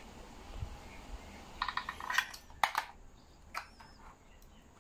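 A few faint clicks and taps of a 1:24 diecast Mercedes-Benz S-Class model being handled in the hands as its hinged front door is opened.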